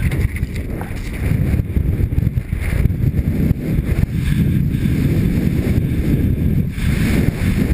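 Wind rushing over a helmet camera's microphone as a mountain bike descends fast, with its tyres rolling and crunching over loose rocky gravel.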